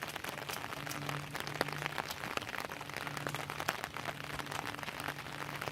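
Steady rain pattering, many small drops ticking, with a faint low hum that comes and goes.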